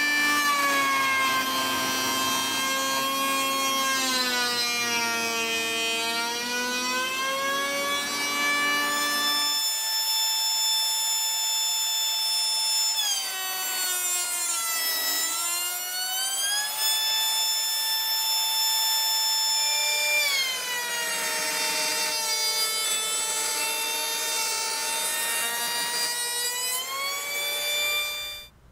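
Ryobi ML-83S electric hand planer, mounted upside down as a benchtop jointer, running with a whine while its cutter head planes a board fed across it. The pitch sags several times as the cut loads the motor, then recovers. The sound cuts off suddenly near the end.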